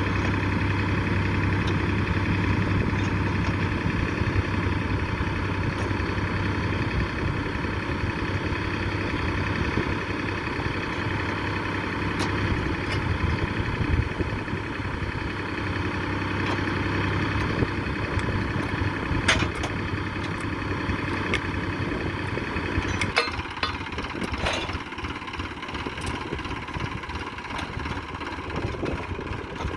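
A heavy machine's engine running steadily, with a few sharp knocks. A little over twenty seconds in, its low hum drops away.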